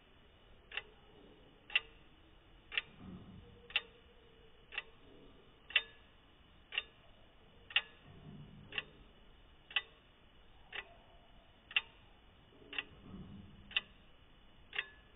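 Pocket watch escapement ticking: sharp, evenly spaced ticks about one a second.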